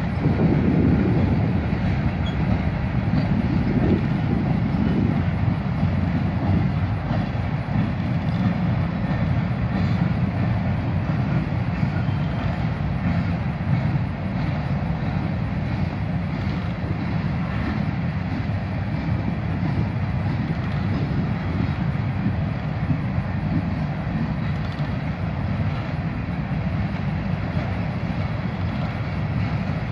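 Covered grain hopper cars of a freight train rolling past at a steady pace: a continuous low rumble of steel wheels on rail.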